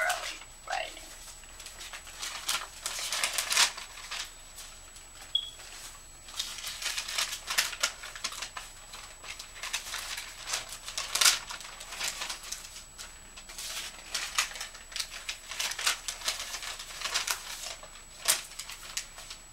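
Paper letters and envelopes rustling as they are handled and sorted by hand: irregular crisp rustles and flicks of paper, some louder than others, with no steady rhythm.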